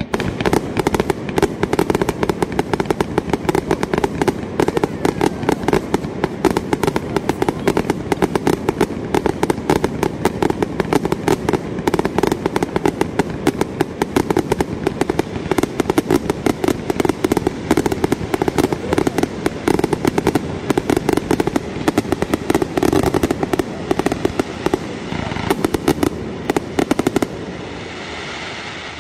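Fireworks barrage: a fast, unbroken string of bangs and crackles, many a second. It stops abruptly about 27 seconds in, leaving a fainter fading crackle.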